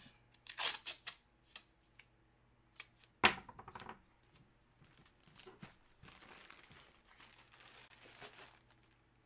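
Packaging being handled: plastic and paper crinkling and tearing in short scattered bursts, with one sharp knock a little over three seconds in and a softer, longer rustle near the end.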